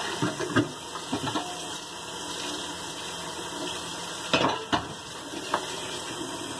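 Dishes and cutlery clinking and clattering in a kitchen sink during hand-washing, over a steady hiss of running tap water. The loudest clatter comes about four and a half seconds in.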